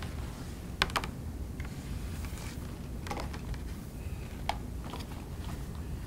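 A few sharp little clicks and taps of a cable and its DB9 connector being handled as a rubber grommet is worked up the cable: two close together about a second in, then single ones later. A steady low hum runs underneath.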